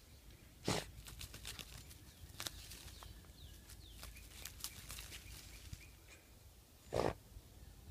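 A small dog snorting forcefully into a mole tunnel as she digs with her mouth: two short, sharp snorts, about a second in and near the end. Between them come light crackles and clicks of dry leaves and roots being pulled at.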